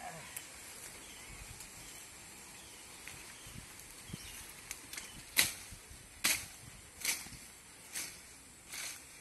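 A curved hand blade cutting through grass and weeds in a series of sharp strokes, roughly one a second, starting about halfway through over a steady outdoor background.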